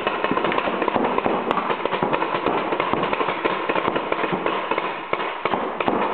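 Reball markers (paintball guns firing reusable rubber balls) shooting rapidly: a dense, uneven crackle of overlapping pops that eases slightly near the end.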